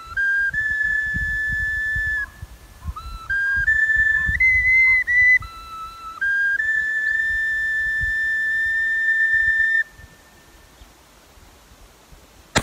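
Background music: a simple melody of held notes in a clear, whistle-like tone that stops about ten seconds in.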